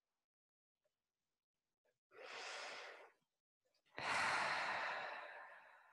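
A woman's deep breathing: one inhale about two seconds in, then a longer, louder exhale through a slightly open mouth that starts sharply about four seconds in and fades away, part of a slow yoga breathing exercise.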